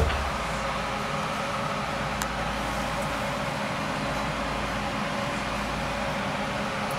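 A bank of three water-cooling pumps running, a steady whirring hum with faint constant tones. A short knock comes right at the start.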